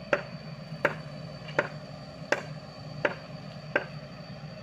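Sany mini excavator's diesel engine running steadily, with six sharp, evenly spaced clicks about three-quarters of a second apart standing out loudest over it.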